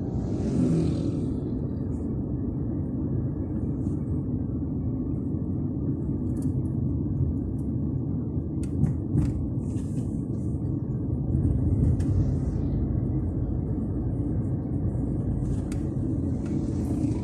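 Steady low rumble of a car driving, heard from inside the cabin, with a few brief hisses and clicks along the way.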